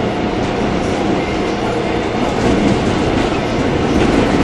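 1981 Kawasaki subway-surface trolley car running on rails, heard from inside the passenger cabin: a steady rumble of wheels on track that grows a little louder about two and a half seconds in.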